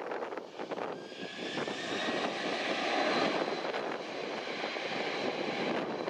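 Japan Airlines Boeing 767-300ER's General Electric CF6 turbofans spooling up for the takeoff roll. About a second in, a rising whine comes in over the steady jet roar, and it is loudest a few seconds in.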